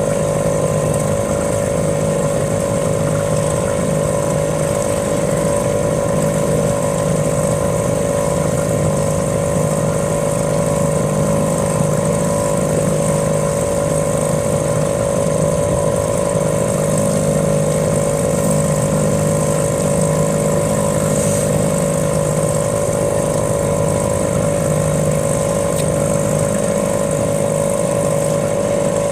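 Small boat motor running steadily at one constant speed, with a steady mid-pitched drone and a faint high whine over it.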